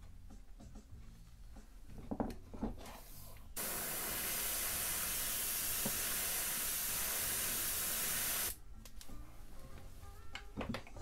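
Badger gravity-feed airbrush spraying a paint mix through a stencil and screen: a steady hiss of air and paint for about five seconds, starting a few seconds in and cutting off suddenly. A few light clicks from handling the stencil come before and after.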